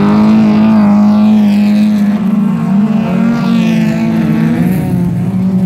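Folkrace cars' engines running hard at high, nearly steady revs as they slide through a dirt-track bend, with a second engine note joining about three seconds in.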